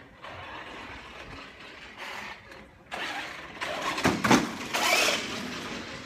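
Radio-controlled toy stock car (a Jeff Gordon #24 model) driving past close by, its motor and tyres on concrete growing louder from about three seconds in, loudest as it passes a little after four seconds, then fading away.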